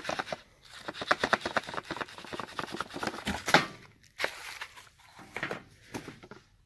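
Plastic bag and paper packaging rustling and crinkling as a product is pulled out of it by hand: a dense run of crackles for the first few seconds, then a few scattered rustles.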